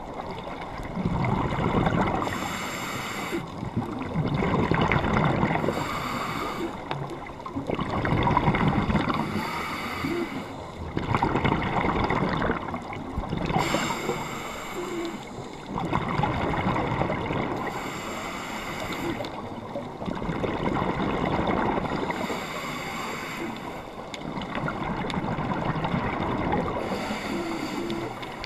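A scuba diver breathing underwater through a regulator: a short hiss on each inhale alternating with a longer rumbling gurgle of exhaled bubbles, about one breath every four seconds.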